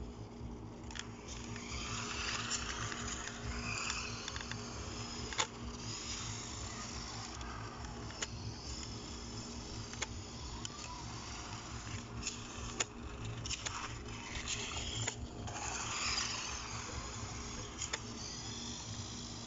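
Radio-controlled crawler's electric motor and gears whirring as it drives, rising and falling with the throttle, over a steady low hum, with a few sharp clicks.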